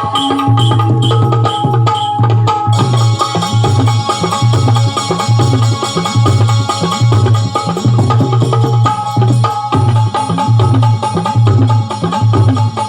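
Instrumental music: a tabla-style hand drum beat with a deep bass stroke about twice a second, under a steady held melody tone. A bright cymbal-like shimmer joins a little under three seconds in.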